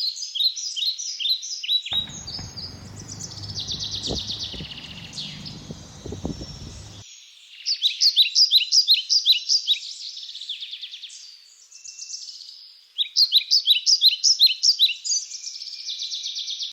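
Wild birds singing: fast runs of repeated high chirps in several bursts, with a low rumbling noise underneath for about five seconds after the first burst.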